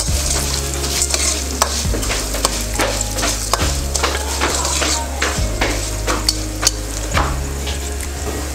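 Metal spoon stirring and scraping hand-made vermicelli (seviyan) frying in oil in a steel karahi: frequent clinks and scrapes of metal on metal over a light sizzle, with a steady low hum underneath.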